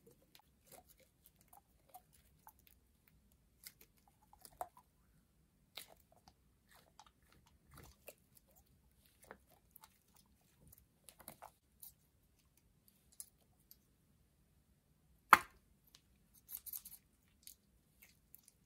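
Soft scattered squishes and clicks of fingers squeezing and rubbing a liquid-filled rubber balloon. About fifteen seconds in there is one sharp, loud snap as the balloon is cut open, followed by a short burst of crackly hiss.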